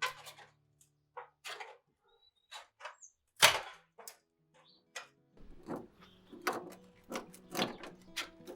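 A string of separate knocks and thuds with short pauses between them, the loudest about three and a half seconds in, as the last notes of a song fade out. About five and a half seconds in, a new song with a steady beat starts.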